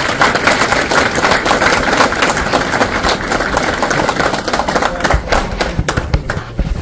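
Audience applauding, a dense patter of clapping hands that thins to a few scattered claps near the end.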